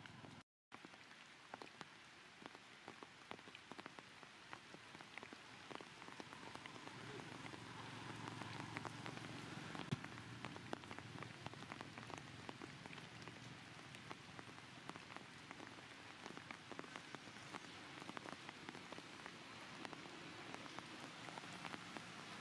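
Faint light rain and water drops falling on surfaces: a soft steady hiss with many small drop ticks. The sound cuts out for a moment about half a second in.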